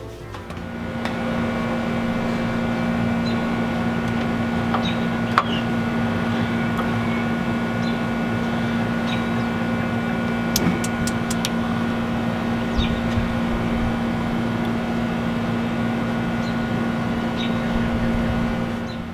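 Outdoor air-conditioning unit running with a steady hum. About ten seconds in, a quick run of sharp clicks from the propane grill's electronic push-button igniter.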